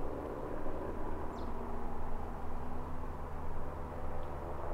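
Outdoor ambience by a flowing river: a steady rushing with a low hum underneath, and one short high bird chirp about a second and a half in.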